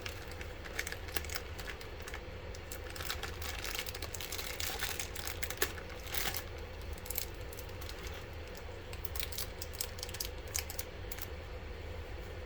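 Small irregular clicks and clinks of the Arctic Liquid Freezer III's AMD mounting brackets and their screws being handled and fastened, over a steady low hum.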